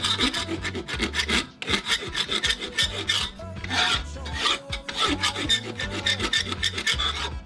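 Hand file rasping on steel in quick repeated back-and-forth strokes, filing down a lump so the file runs cleanly into the corner of a forged steel bar.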